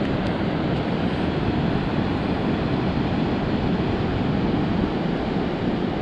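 Steady wind noise on the microphone: an even rushing hiss over a fluttering low rumble, with no breaks.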